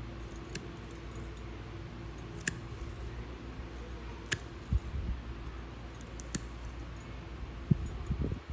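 Nail nippers snipping through a thick, crumbly toenail: sharp clicks a second or two apart over a low background hum.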